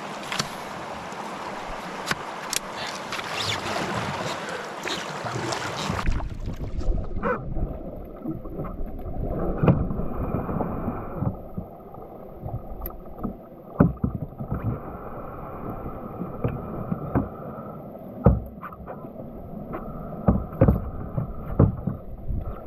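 A steady hiss for about six seconds, cut off abruptly, then a canoe being paddled. Wind rumbles on the microphone while the paddle strokes give scattered knocks and splashes against the hull.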